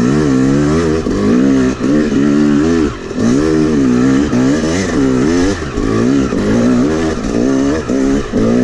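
Yamaha YZ250X 250cc two-stroke dirt bike engine under the rider, revving up and down over and over as the throttle is worked while riding, its pitch rising and falling about once a second.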